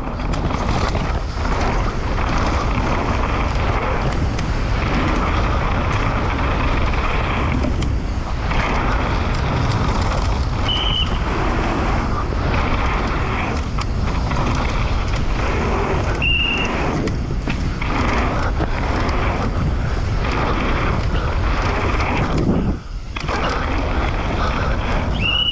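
Downhill mountain bike ridden fast down a rough dirt race track: a steady rush of wind on the camera microphone over the rattle of tyres and bike on the ground. There is a brief lull near the end and three short high squeaks along the way.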